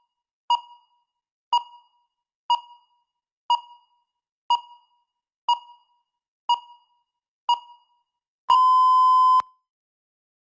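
Electronic countdown-timer beeps: eight short beeps, one a second, then a single long beep about a second long, marking the countdown reaching zero.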